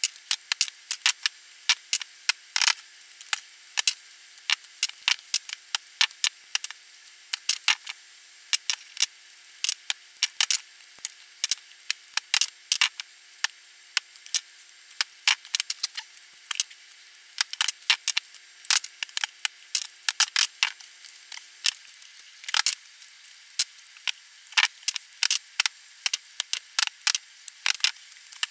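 Hand tools snipping, prying and clicking on laptop battery cells as the packs are cut apart and the tabs stripped, with metal tools and cells clattering on the bench. The clicks and snips come rapidly and irregularly throughout.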